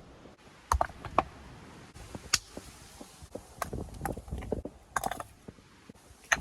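Stones knocking and scraping against one another as they are handled and set into a wall: irregular sharp knocks and clicks, a handful louder than the rest.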